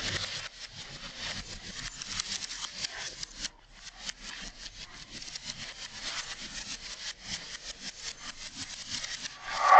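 A West Highland white terrier's claws scrabbling and skittering on a hard floor as it darts and pounces after a laser dot: a rapid, irregular run of scratchy scrapes with a short lull about three and a half seconds in.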